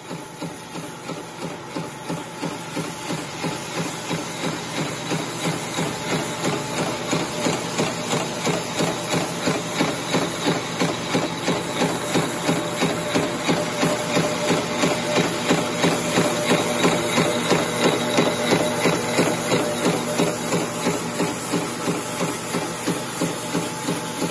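Wire straightening and cutting machine running, a steady mechanical whir with a regular clacking about three times a second, drawing wire off a coil and cutting it to length.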